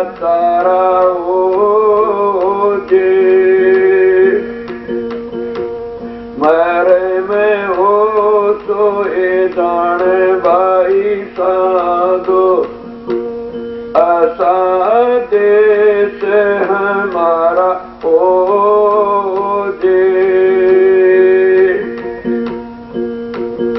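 Man singing a Hindi devotional bhajan in long, wavering phrases over a steady instrumental drone, with short breaks between phrases.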